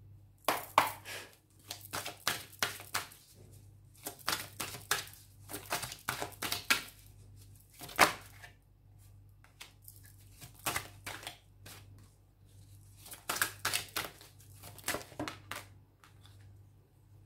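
A deck of tarot cards being shuffled and handled: irregular flurries of crisp card clicks and slaps with short pauses between, then a card laid down on the cloth near the end. A faint low hum runs beneath.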